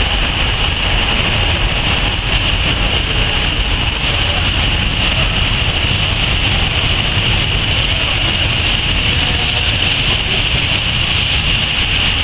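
Steam locomotive hissing steadily with escaping steam, a strong even hiss over a low rumble as the coaches start to move slowly.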